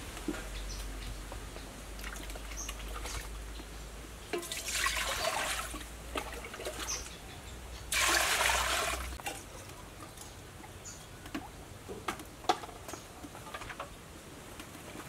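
Water poured from a plastic bowl into a large, empty metal cooking pot, in two pours: a softer one about four and a half seconds in and a stronger one about eight seconds in, each lasting a second or so. Light clicks and knocks come in between.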